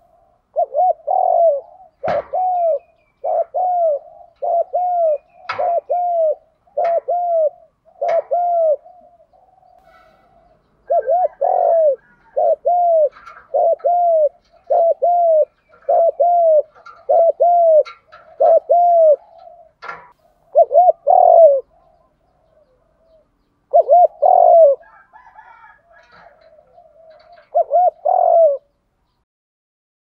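Spotted dove cooing a rapid run of short arched coos, about one a second, in several bouts with short pauses: the fast 'thúc gù' coo. A few sharp clicks fall among the coos.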